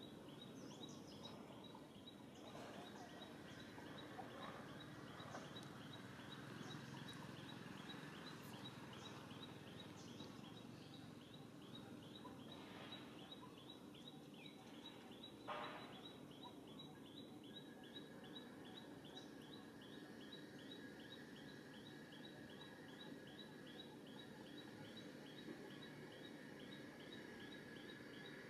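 Faint outdoor ambience: a steady low rumble under a high, rapidly and evenly repeating chirp, with one short sharp sound about halfway through and a faint steady tone in the second half.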